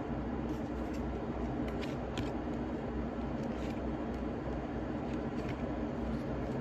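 Tarot cards being handled on a table: a few light, scattered taps and clicks over a steady low room hum.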